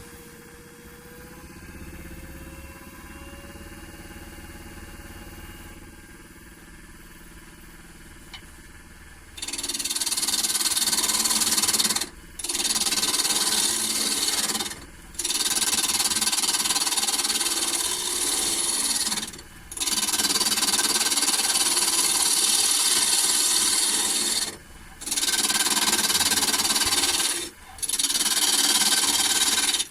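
Holzmann D460FXL wood lathe running, its motor tone rising slightly as the spindle speeds up. From about a third of the way in, a turning tool cuts into the spinning wood: a loud scraping hiss in several passes of two to five seconds, with brief breaks as the tool lifts off.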